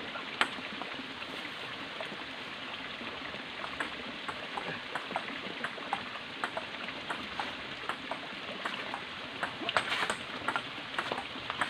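Table tennis ball clicking off paddles and the table in a rally, sharp clicks about three a second, bunching into a quick flurry of hits near the end, over a steady background hiss.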